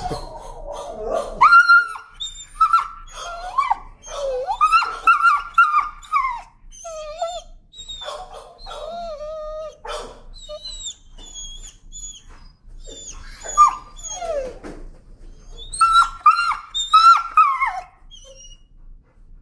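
Timid rescue dog whining and yelping in high, wavering cries, bursts of them coming one after another with short pauses, until they stop near the end. The dog is fearful and protesting at being handled.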